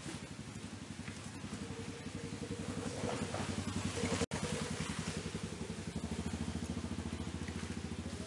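An engine running at idle: a steady, rapid low putter throughout. The sound cuts out for an instant about halfway through.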